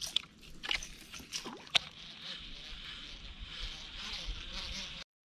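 A few sharp clicks and knocks from a baitcasting reel and lure being handled in a kayak in the first two seconds, then a steady high hiss; the sound cuts off abruptly near the end.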